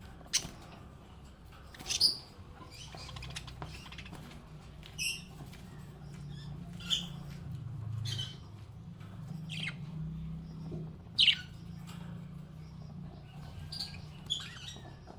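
Small pet parrots chirping: short, sharp, separate chirps every second or so, a couple of them louder, over a steady low hum.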